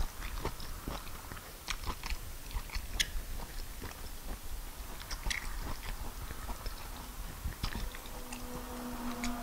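Close-up mouth sounds of a person eating fufu with peanut soup by hand: soft chewing with small wet smacking clicks. A steady low hum begins near the end.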